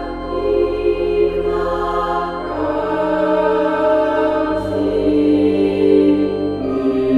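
Slow background music of long held chords that change every one to two seconds.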